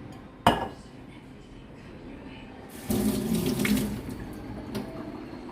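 A sharp knock about half a second in, then a kitchen tap runs into the sink for about a second.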